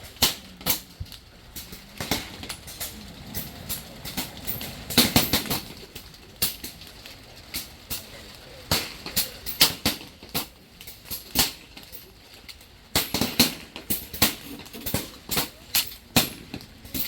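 Air rifles firing down a benchrest line: sharp, irregular cracks, a few a second, from several shooters at once, with a denser, louder cluster about five seconds in.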